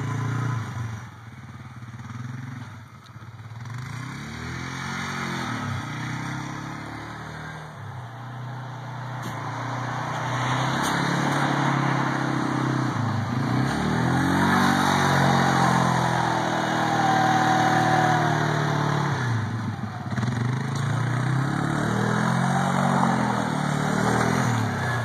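ATV engine driving past several times, its pitch rising and falling as it speeds up, passes and pulls away.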